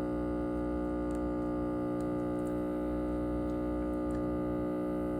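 Background music: a steady, sustained chord that holds unchanged, with a few faint ticks over it.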